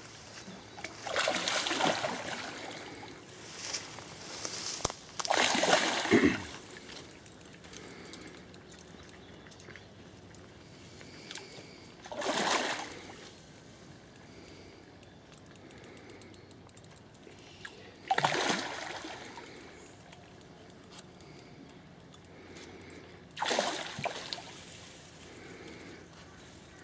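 A hooked carp splashing and thrashing at the water's surface as it is played in: about five separate splashes a few seconds apart, the loudest near the start.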